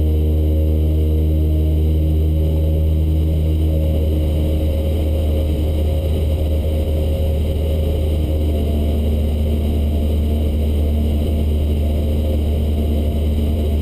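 Cessna 152's four-cylinder Lycoming O-235 engine and two-blade propeller droning steadily in cruise flight, heard inside the small cabin. The engine's note shifts slightly between about four and eight seconds in.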